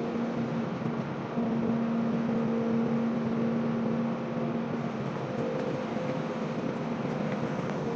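Steady factory workshop machinery noise: a constant hum with a low tone that comes in about a second and a half in and drops away near the middle.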